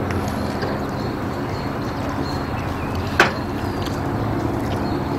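Open-air ambience of wind and a steady low hum, broken by one sharp crack about three seconds in.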